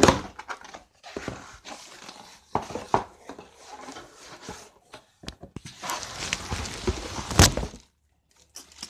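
A cardboard shipping box being opened by hand: irregular rustling and scraping of the cardboard flaps and packing tape, with a few knocks and one louder burst near the end.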